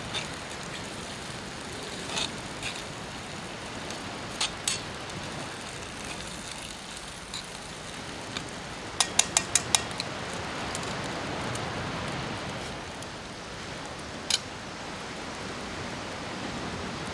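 Food frying in a skillet over a wood campfire: a steady sizzling, crackling hiss with scattered sharp clicks, including a quick run of five about nine seconds in and a single loud click near the end.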